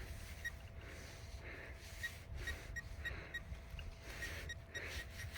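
Short, high electronic beeps from a metal detector, a dozen or so at irregular spacing, as it sounds off on a buried metal target in a dig hole, with soft scraping of dirt.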